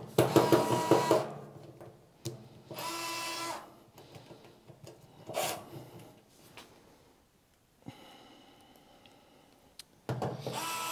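Small handheld electric screwdriver driving screws into a battery case: three short runs of about a second each, near the start, about three seconds in and near the end, the motor whine rising to a steady pitch and dropping as it stops.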